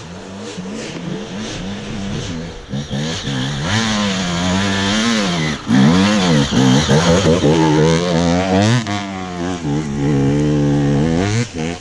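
Motor vehicle engine revving up and down again and again, its pitch rising and falling every second or two and growing louder about four seconds in.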